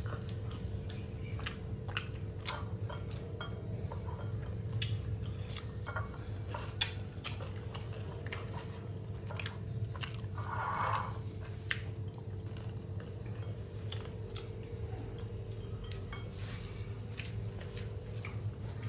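People eating: chewing and biting, with scattered clicks and clinks of plates and cutlery, over a steady low hum.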